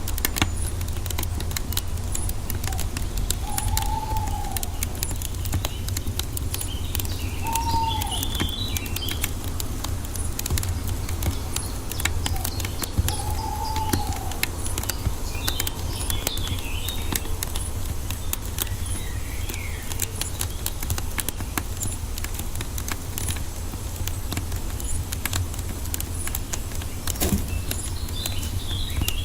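Wood fire crackling with many small irregular pops over a low steady rumble, with forest birds calling: a few short rising-and-falling whistles and several brief high chirping phrases at intervals.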